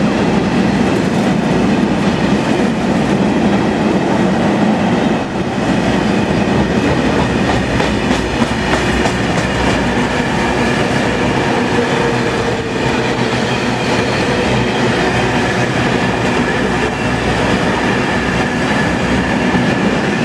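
Train running at speed behind a Class 57 diesel locomotive, heard through an open carriage window: a steady rush of engine, wheel and wind noise with the clickety-clack of the rails and a faint steady whine.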